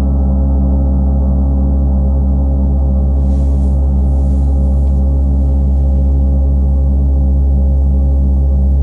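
38-inch Paiste Earth Year planet gong, tuned to C sharp (136.1 Hz), sounding loud and sustained: a dense, steady wash of low tones with many overtones and a slow pulsing, with no separate strike heard, growing slightly louder near the end.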